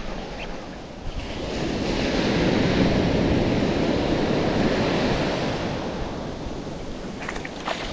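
Ocean surf: a wave washing in, swelling about a second in and slowly easing off, with wind buffeting the microphone.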